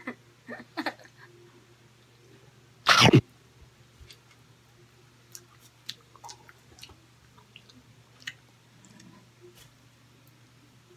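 A single short, loud burst of breath from the eater about three seconds in, then faint scattered mouth clicks and chewing over a low steady hum.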